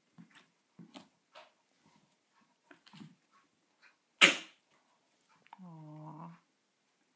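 Small puppy snuffling and snorting in short puffs as it plays, with one loud, sharp puff about four seconds in. A short, low, steady hum follows about a second later.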